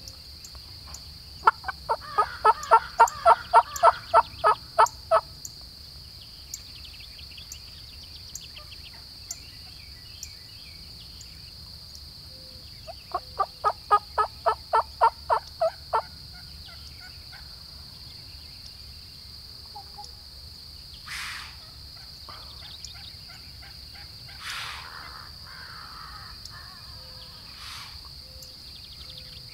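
Two long runs of turkey yelping, the notes coming evenly at about four or five a second: the first lasts about three and a half seconds, the second about three seconds midway. Two fainter, shorter turkey calls follow later, over a steady high-pitched hum.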